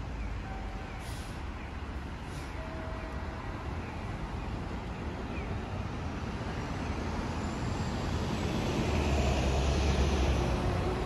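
City street traffic: steady road noise of passing cars, swelling into a louder low rumble as a vehicle passes close about eight seconds in.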